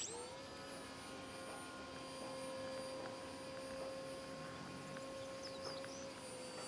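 Electric motor of an RC glider spinning up quickly and then running with a steady whine, as for a powered climb; the pitch dips slightly near the end.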